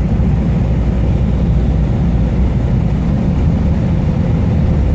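Steady low rumble of a Scania R440 truck's diesel engine and tyres on the highway, heard from inside the cab while cruising.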